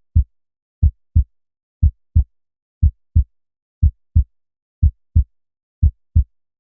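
Heartbeat recording: lub-dub pairs of short, low thuds at about one beat a second. The two thuds of each pair are a third of a second apart. They are the two normal heart sounds, S1 from the closure of the mitral and tricuspid valves and S2 from the closure of the aortic and pulmonary valves.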